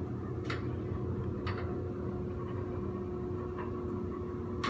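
A small electric motor hums steadily at one pitch, with a few faint clicks spaced about a second or two apart.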